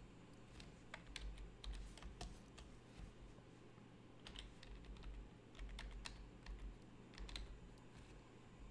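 Faint, irregular clicking of computer keyboard keys and a stylus tapping on a drawing tablet during digital sketching, with a few soft low thumps.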